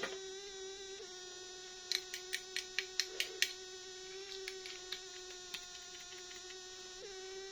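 A quick run of about eight sharp clicks, then a few scattered lighter ones, from small plastic toy packaging being handled during an unboxing. Under them runs a steady pitched hum.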